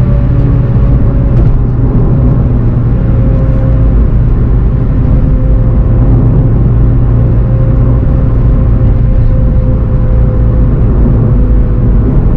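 Turbocharged four-cylinder engine of a VW Golf 7 GTI TCR running steadily in gear, its pitch sinking slowly as the car slows, over steady road noise.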